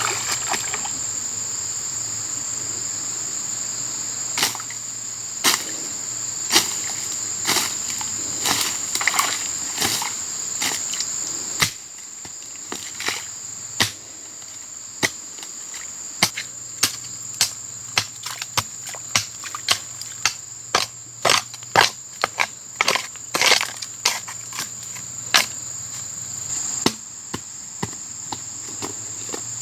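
A hoe chopping into a muddy earth bank, with repeated sharp strikes that come faster in the second half, about two a second at their busiest. Insects drone steadily and high-pitched underneath.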